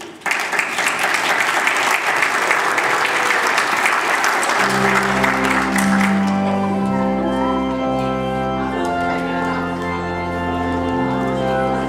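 Audience clapping, joined about four and a half seconds in by an organ playing held chords; the clapping dies away soon after and the organ carries on alone.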